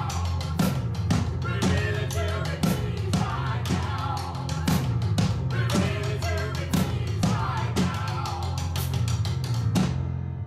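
Live music from a small stage band: a snare drum struck with sticks about twice a second over a steady low note, with melodic lines above. The music stops suddenly near the end.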